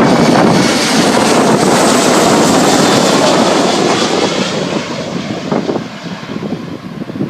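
Jet airliner passing close by with heavy wind buffeting the microphone; the jet noise fades after about four and a half seconds, leaving gusty wind.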